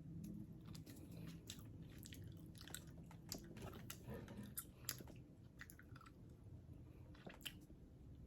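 A person chewing a soft, taffy-like candy with faint, irregular wet mouth clicks and smacks.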